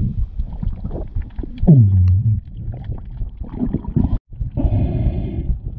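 Muffled underwater water movement heard through an action camera just below the surface: a low rumble and sloshing as the diver swims, with a short falling tone about two seconds in. The sound cuts out briefly just after four seconds.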